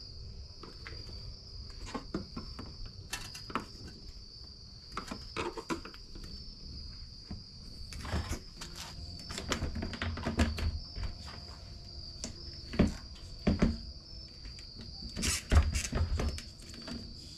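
Irregular clicks, knocks and rattles of a fuel pump assembly being handled and prised apart by hand, with a steady high-pitched tone underneath. The loudest knocks come in the last few seconds.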